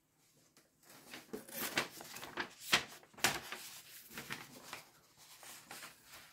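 A folded paper instruction sheet rustling and crinkling as it is unfolded and spread open: a string of crisp, irregular crackles that starts about a second in and is loudest about three seconds in.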